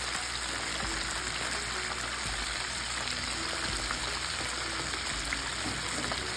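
Battered chicken deep-frying in a pot of hot oil: a steady sizzle of the oil bubbling around the pieces.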